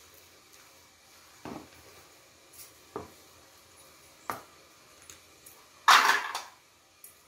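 Metal spoon knocking and scraping against an aluminium pot while thick idli batter is stirred: three separate clinks a second or so apart, then a louder clatter near the end.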